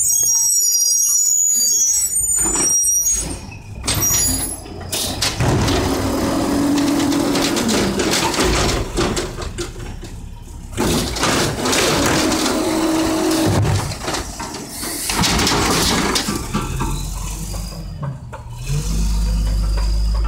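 LNG-fuelled Mack LE garbage truck with an Amrep automated side-loader body working at the curb, its engine and hydraulics running. A high squeal comes at the start, followed by several loud hissing surges, with a low rumble near the end.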